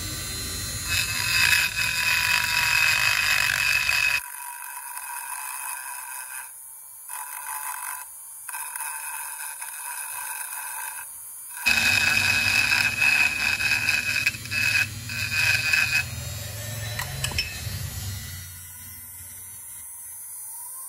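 Small rotary grinder with a long grinding bit abrading a Zippo lighter's metal case and hinge: a steady high whine with scraping. It is loud for the first few seconds and again in the middle, with quieter grinding between and near the end. The metal is being roughened so the solder will take.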